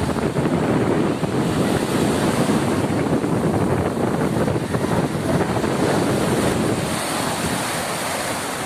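Sea surf at the shore mixed with wind buffeting the microphone: a steady, loud rushing noise that eases slightly near the end.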